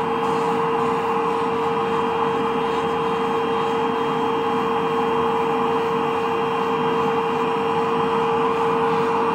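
Podiavac PDV 40 podiatry drill with built-in dust suction running steadily while its sanding cap buffs hard heel skin: an even whirr with one steady hum at a fixed pitch.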